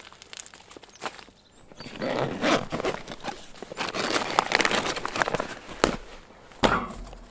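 Irregular crunching and rustling, with two sharp knocks near the end.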